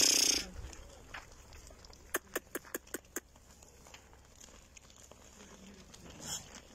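Flock of Naimi sheep being driven along a dirt street. A short hiss at the start, then a quick run of about six sharp clicks a couple of seconds in, then another brief hiss near the end, over a faint steady background.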